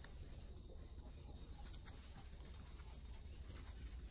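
An insect in the forest droning steadily on one high, unbroken tone, over a low rumble.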